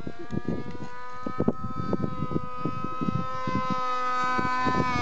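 Radio-controlled model airplane's engine running steadily in flight: a high, even drone that rises a little in pitch near the end. Wind thumps on the microphone underneath.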